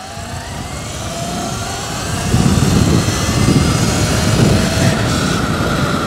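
Electric bike motor whining as it picks up speed, its pitch rising steadily. Wind noise buffets the microphone and grows louder from about two seconds in.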